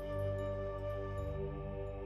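Background music: slow new-age music with long held tones.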